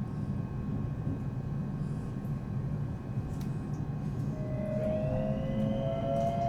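Electric commuter train running slowly, a steady low rumble heard from the driver's cab. About four and a half seconds in, a sustained two-note tone rises in and holds to the end.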